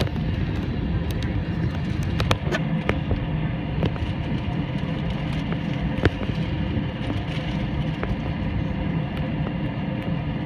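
Airliner cabin noise: a steady low rumble of the jet engines and airflow, with scattered light clicks and rattles.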